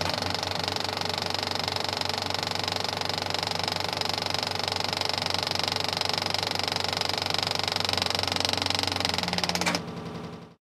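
Film projector running: a steady, rapid mechanical clatter over a motor hum. The motor winds down and stops near the end.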